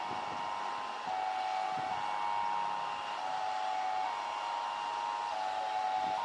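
Boeing 737 airliner's twin jet engines running steadily with an even rushing whine, together with a two-tone warning signal that alternates between a higher and a lower pitch about once a second.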